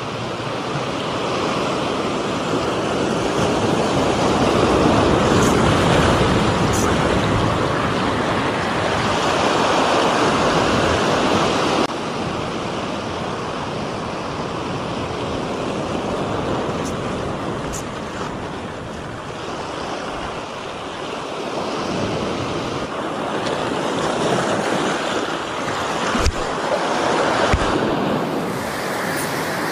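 Sea waves breaking and washing up the beach, surging louder and easing off in turn. A couple of low knocks near the end.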